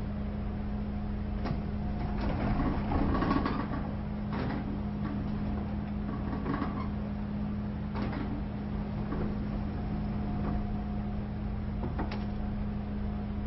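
Metal automatic sliding door operating: a steady motor hum, with the sliding run loudest about two to four seconds in, and sharp clicks and knocks at intervals, the last about twelve seconds in.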